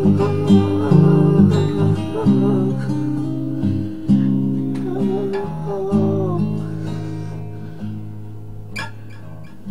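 Acoustic guitar playing chords, the loudness slowly dying away as the song ends; one short sharp click near the end.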